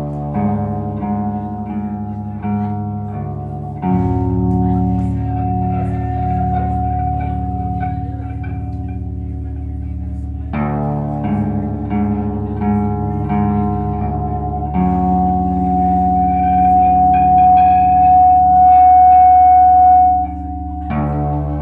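Slowcore rock band playing live: slow, sustained electric guitar chords ringing over bass, changing every few seconds. A long held high note swells to its loudest near the end, then drops away suddenly.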